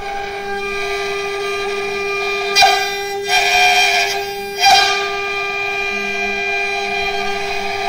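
CNC router spindle running with a steady high whine while its bit carves a wooden figure turned on the 4th (rotary) axis. The cutting noise surges louder a few times in the middle, about two and a half to five seconds in.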